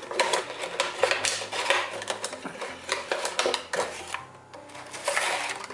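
Cardboard box and clear plastic blister tray of an action-figure package crinkling and rustling as they are handled and the tray is slid out, with many small clicks and crackles, then a softer rustle near the end.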